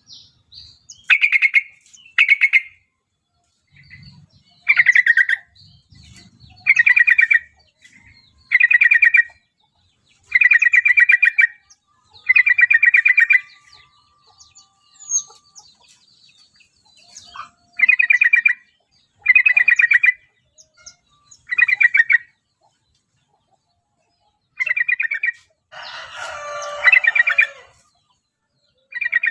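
Yellow-vented bulbul (trucukan) singing a series of short, bubbly, rapidly warbled phrases, about a dozen, spaced a second or two apart. A rougher, fuller phrase comes near the end.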